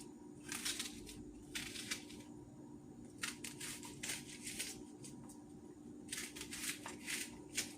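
Knife cutting through an onion: short crunching strokes in several groups, with pauses between them.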